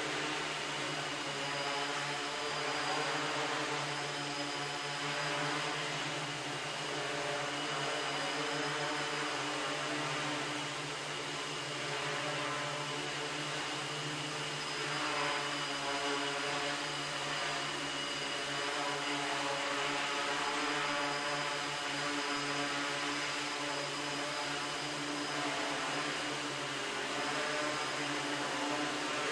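MikroKopter multirotor drone hovering, its electric motors and propellers making a steady buzzing whine with gentle swells in level.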